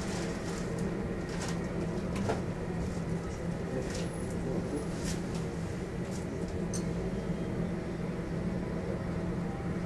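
Boeing 747-400's General Electric CF6 turbofans running at idle during pushback, heard as a steady low hum with a faint high whine over it. Scattered light clicks and ticks occur throughout.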